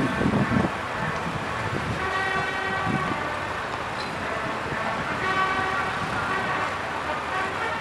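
A vehicle horn sounds twice, two long, steady blasts over city traffic noise.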